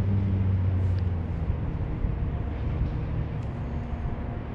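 Motor vehicle engine hum, steady low tones that fade about a second in, leaving a low rumble.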